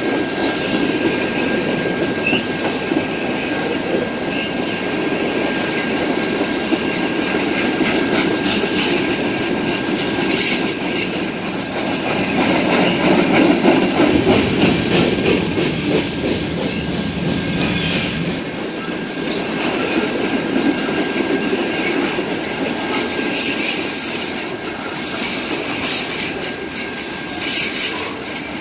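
BNSF freight cars (covered hoppers and boxcars) rolling past at close range: a steady rumble of steel wheels on rail, with wheels clacking over rail joints and a faint steady high-pitched squeal.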